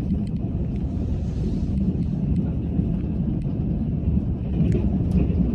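Steady low rumble of a moving passenger train heard from inside the carriage, with faint scattered clicks and rattles.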